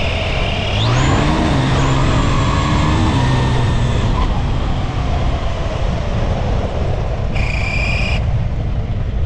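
Electric RC buggy accelerating hard over dirt, heard from a camera on the car: a high motor whine that climbs steeply about a second in and holds, over a constant rush of wind and tyres on gravel. A motorcycle engine revs up alongside in the first few seconds.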